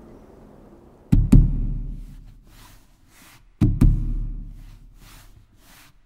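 Slow drum beat from a film soundtrack: deep drum strokes struck in quick pairs about every two and a half seconds, each ringing out low. Soft hissing strokes fall between the pairs.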